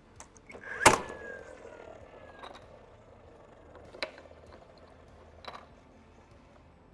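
DeWalt cordless nail gun firing once to pin the handrail, a sharp shot about a second in followed by a falling motor whine as it resets. A few lighter knocks of handling follow.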